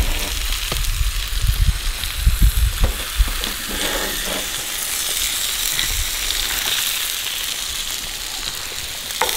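Breadcrumb-coated grayling sizzling in oil on a cast iron griddle, a steady frying hiss. In the first three seconds a few low knocks come as metal tongs lift the fish from the griddle.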